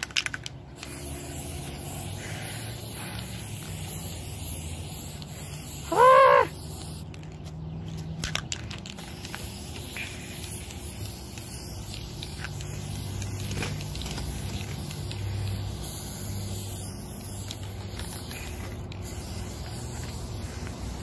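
Aerosol spray paint can hissing steadily as paint is sprayed onto a table top, with a few scattered clicks. A short high-pitched squeal about six seconds in is the loudest sound.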